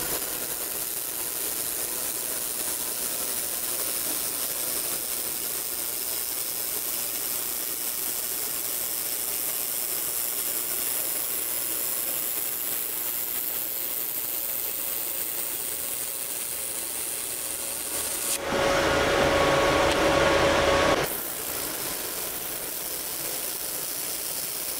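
Handheld wobble laser welder fusing stainless steel with a steady spattering crackle and hiss. A louder stretch of about three seconds near the end carries a steady tone.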